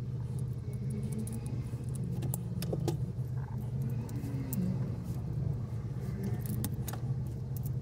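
A steady low engine rumble, with scattered light clicks of a wooden chopstick scraping and tapping meat out of a boiled crab's shell.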